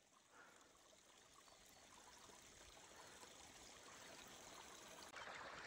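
Near silence, then faint running water of storm runoff fading in over the last seconds and rising a step about five seconds in.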